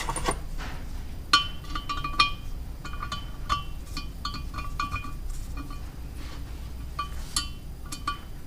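Steel engine valve clinking and tapping in the Ford Focus ST225's cylinder head as it is slid through its guide and dropped onto its seat to check for binding: a string of irregular light metallic clicks, each with a short ring.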